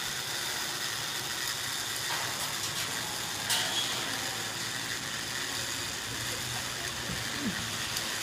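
Steady whirring hiss of a sky bicycle's pulley trolley rolling along its steel cable, with a sharp click about three and a half seconds in.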